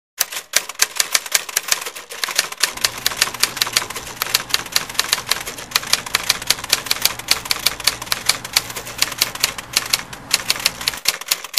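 Typewriter keys clacking rapidly and unevenly, several strokes a second, as in steady typing. A faint low hum sits under the typing from a few seconds in.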